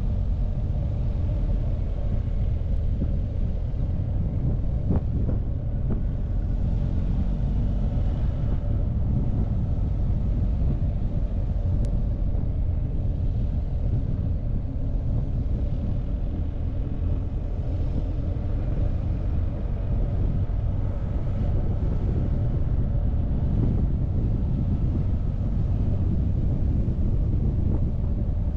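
BMW R1250GS's boxer-twin engine running steadily while the motorcycle is ridden, with wind rumbling over the microphone.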